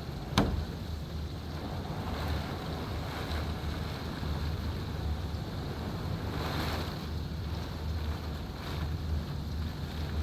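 Hurricane wind gusting steadily, with a low rumble of wind buffeting the microphone. A single sharp knock about half a second in is the loudest sound.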